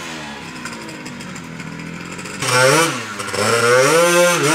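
120cc big-bore two-stroke Honda Elite scooter engine. It runs steadily at first, then from about halfway through it revs hard several times, its pitch rising and dropping, as the scooter pulls away on its new clutch.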